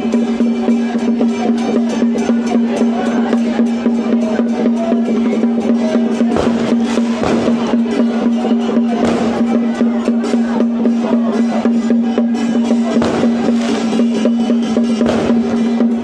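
Music with fast, even drum and percussion strokes over a steady held low note.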